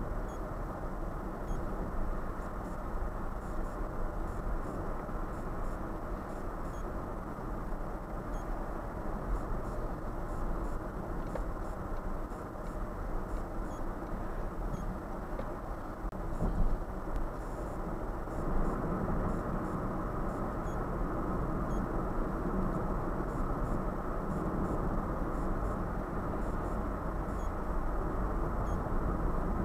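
Steady road and tyre noise with engine rumble inside a car cruising on a freeway, picked up by a dashcam's microphone. There is a brief thump a little past halfway, and the rumble grows louder soon after.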